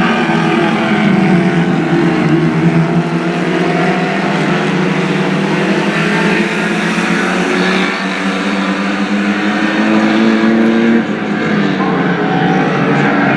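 Several Lightning Rods stock cars racing round an oval, their engines running hard with several engine notes overlapping. The sound dips briefly about eleven seconds in.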